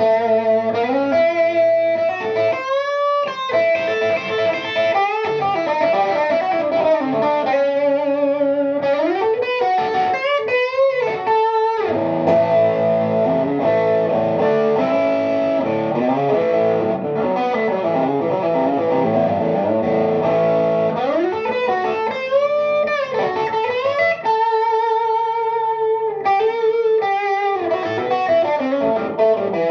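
Kauer Daylighter hollow-body electric guitar with Wolf Tone pickups, played through a distorted amp tone: a lead passage of single notes with string bends and wide vibrato, some notes held and others run quickly.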